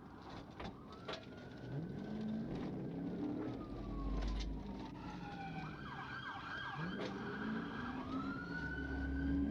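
Police car siren wailing in slow rising and falling sweeps, switching to a fast yelp for a second or two in the middle, with a car engine revving underneath.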